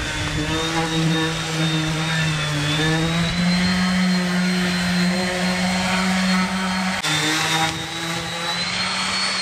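Electric random orbital sander running steadily on a boat's painted hull, a motor hum with a high whine, sanding the topside paint. It breaks off briefly about seven seconds in, then is switched off at the end and spins down with a falling whine.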